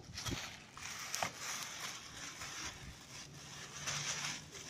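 Clear plastic wrapping crinkling and rustling as a folded umbrella stroller is handled and pulled upright, with a few light clicks and knocks from its frame.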